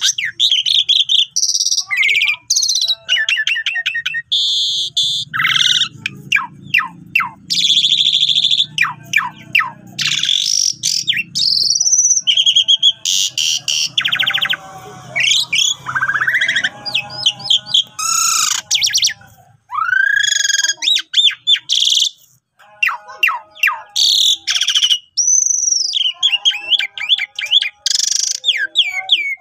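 Pied starling (jalak suren) singing hard, in full song: a long, varied run of loud whistles, fast chirp trains and rising and falling glides, with short pauses between phrases.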